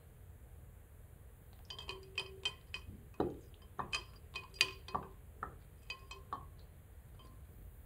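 A dropper clinking against the inside of a glass beaker of water, a string of light clinks, some with a brief ring, about two to six seconds in. A duller knock comes a little after three seconds.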